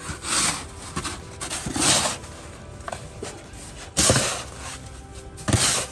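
Wet, hardened snow being scraped and cleared in four strokes, each a short rough scrape, over background music.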